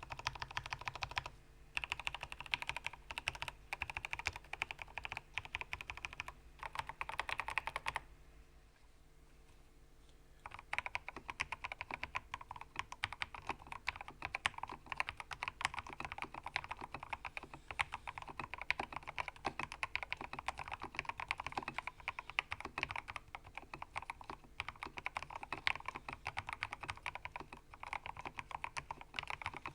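Typing on a Ramaworks Kara mechanical keyboard with lubed and filmed switches and internal dampeners: a fast, continuous run of keystroke clicks, broken by a pause of about two seconds some eight seconds in.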